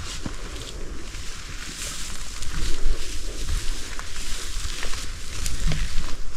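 Rustling with scattered sharp clicks and cracks, over a low rumble of wind or handling noise on the microphone.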